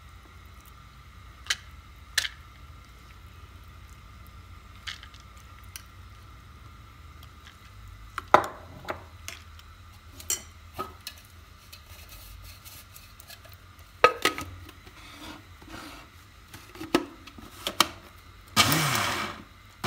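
Metal spoon knocking and scraping against a plastic electric chopper bowl as soaked moong dal is dropped in, a scatter of sharp clicks. Near the end the chopper's motor runs in a short burst, pulsed to chop the dal.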